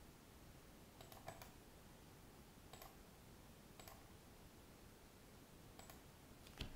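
Faint computer mouse clicks, about six at irregular intervals, as objects are picked and moved in CAD software. A quick pair comes about a second in and the loudest click near the end, over a low hiss.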